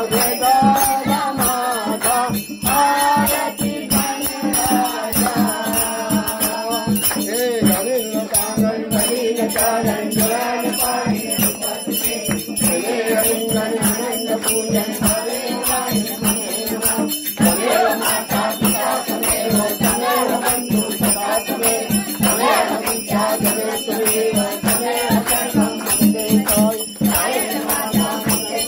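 A group of women singing a Marathi aarti to the goddess Gauri, kept in time by steady, fast hand-clapping and a continuous metallic jingling.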